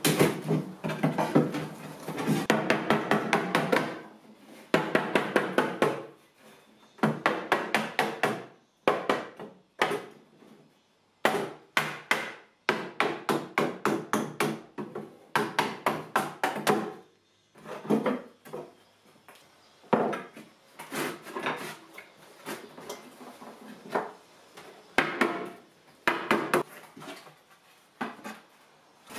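Hammer knocking on old wooden boards in quick runs of blows, several short runs with pauses between, as nailed-in bottom boards are knocked loose and pulled out.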